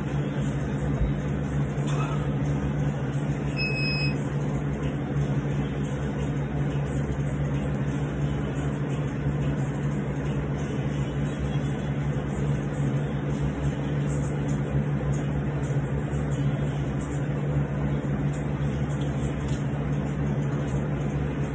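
A steady mechanical hum with even hiss that never changes, with one short high beep about four seconds in.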